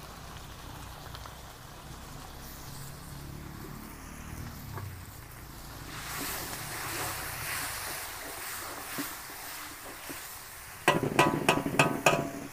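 Tomato sauce sizzling and bubbling in a large aluminium wok over a gas burner as it is stirred with a ladle; the sizzle grows louder about halfway through. Near the end comes a quick run of loud, sharp, ringing strokes.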